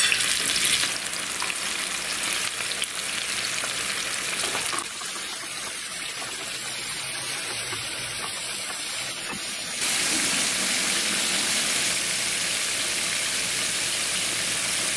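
Breaded carp pieces frying in hot oil, with a steady bubbling sizzle. It drops a little about five seconds in and comes back louder at about ten seconds.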